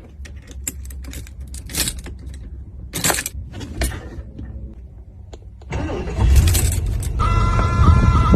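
Car engine running with a low rumble under scattered clicks and jangling, then about six seconds in it gets much louder as the engine is revved or started, with a steady high whine over the engine from about a second later.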